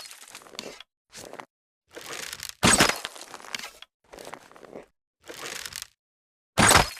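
Wooden bow and arrow sound effects: a string of separate short sounds with silence cut between them. Quieter noisy sounds of about half a second alternate with loud, sharp cracks, one about two and a half seconds in and one near the end.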